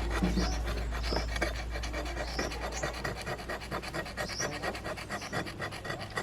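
Quick, even rubbing or scraping strokes, as from hand work on a part, over a steady low hum.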